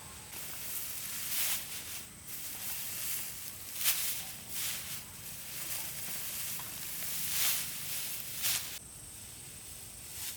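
Cut rice stalks rustling and swishing as they are gathered and handled, with several louder swishes; the rustling stops shortly before the end.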